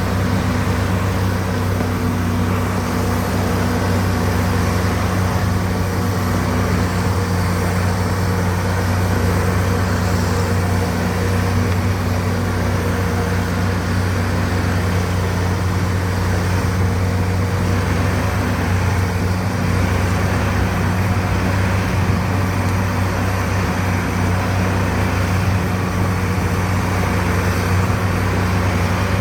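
Bulldozer's diesel engine running steadily under load, a constant low drone with no pauses or changes in pitch.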